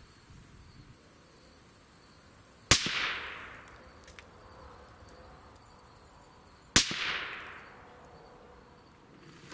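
Two rifle shots about four seconds apart, each a sharp crack with a trailing echo, from a suppressed 6mm Grendel AR-15 firing 90-grain Sierra GameChanger handloads. They are the second and third shots of a three-shot group at 100 yards.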